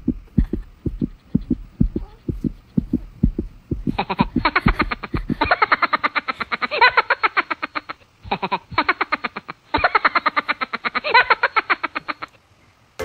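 Added suspense soundtrack: a heartbeat-style effect of rapid low thumps, joined about four seconds in by a fast, evenly pulsing music track. The music breaks off briefly twice and stops abruptly near the end.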